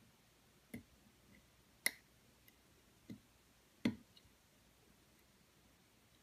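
Sparse light clicks of a lock pick working the security pins of an American Lock 700 series padlock under tension: four distinct clicks within about three seconds, with a couple of fainter ticks between.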